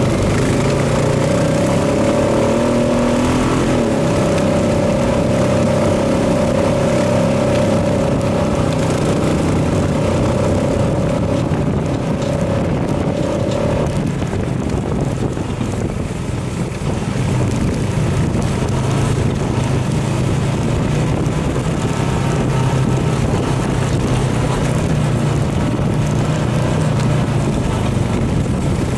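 A 2015 Honda FourTrax Foreman Rubicon 4x4 ATV's engine running steadily while riding a gravel trail, with a constant rumble. A steady high whine sounds through the first half and drops out about halfway through.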